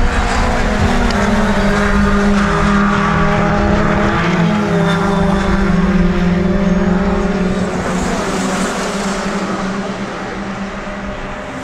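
Formula Ford race cars passing at speed, their engines running hard at high revs. Several cars go by in turn, each engine note dropping in pitch as it passes, and the sound eases off a little near the end.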